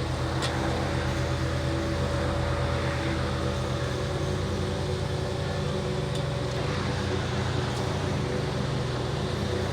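Car engine and road noise inside a moving car, a steady low hum.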